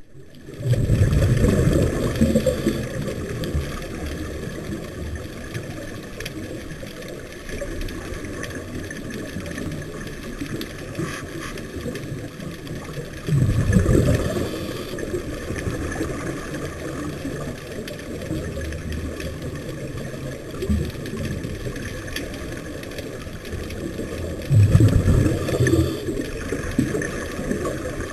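Scuba divers' exhaled bubbles from the regulator, heard underwater: a steady low bubbling rumble with three louder gushes of two to three seconds each, near the start, about halfway and near the end.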